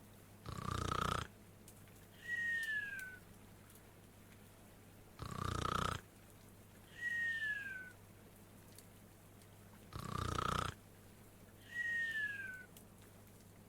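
Snoring: a rasping snore on each in-breath, then a high whistle falling in pitch on the out-breath. The pair comes three times, about five seconds apart, very evenly.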